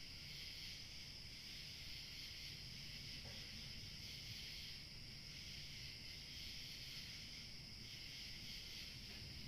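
Night insect chorus: many insects such as crickets trilling together in a steady high-pitched band, faint, with a low rumble underneath.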